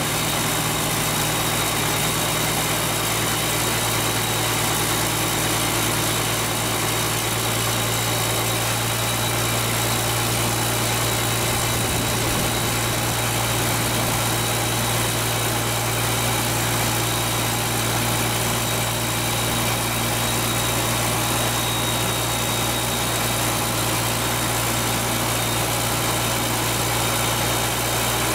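Ford TW25 tractor's six-cylinder turbo diesel idling steadily with the exhaust removed, so it runs straight out of the turbocharger, with a steady high whistle over the engine note. The turbo is worn and due for reconditioning.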